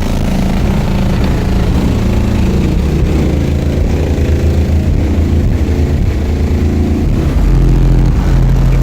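Car audio system playing bass-heavy music very loud, the deep bass notes changing in steps.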